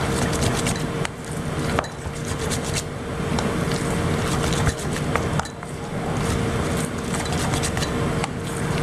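A metal fork stirring thick zucchini batter in a stainless steel bowl, with repeated light clinks and scrapes of metal on metal, over a steady background hum.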